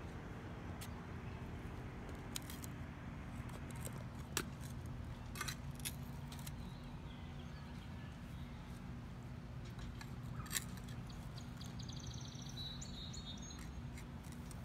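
Scattered scrapes and knocks of a shovel digging out a buried sprinkler rotor head, over a steady low hum. A bird chirps a quick run of high notes near the end.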